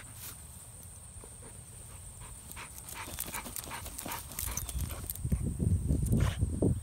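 A dog digging a hole in the grass with its nose down in it: scattered light scratches of dirt at first, growing louder and busier about four seconds in.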